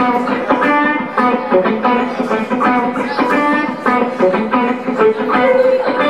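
Electric guitar strumming a rhythmic chord pattern in a live band song, with no vocal line.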